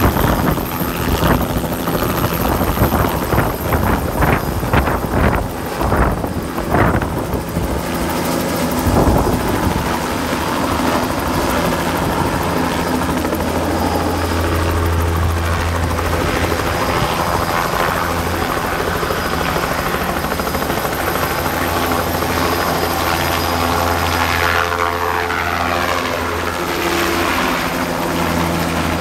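A light helicopter with a two-bladed main rotor taking off and flying away. Its rotor thuds unevenly as it lifts off, then settles into a steady drone as it hovers and moves off, and near the end it passes close by with its pitch falling.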